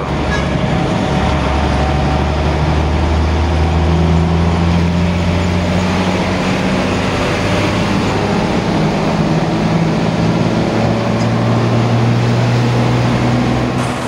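Intercity bus's diesel engine running under way, heard from inside the passenger cabin over steady road noise. The low engine hum shifts in pitch a few times, around a second in and again about ten seconds in.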